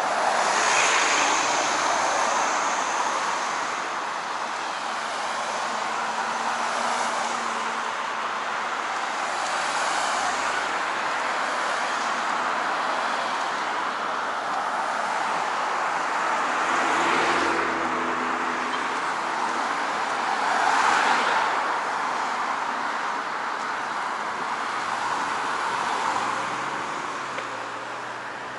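Steady road traffic with cars passing close by, one after another; the loudest pass comes about twenty seconds in.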